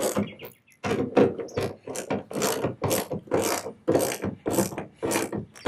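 Ratchet wrench clicking in short, even strokes, about two a second, as the hood damper bracket bolts are tightened down.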